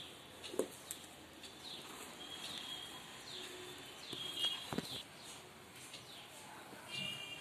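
Birds chirping: repeated short downward chirps and brief high steady notes, with a couple of light knocks.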